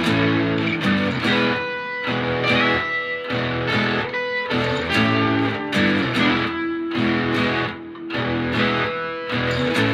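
Background music led by plucked and strummed guitar, playing a steady rhythmic pattern of changing notes over a bass line.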